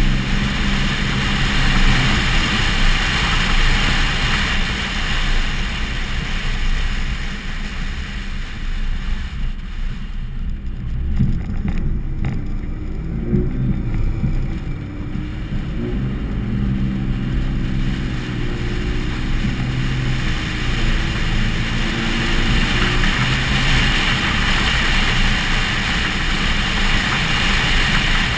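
Dodge pickup truck's engine running under load as the truck drives fast on a dirt road, with a steady rush of wind and tyre noise over a hood-mounted microphone. About halfway through, the engine pitch rises and falls a few times as the truck accelerates and eases off.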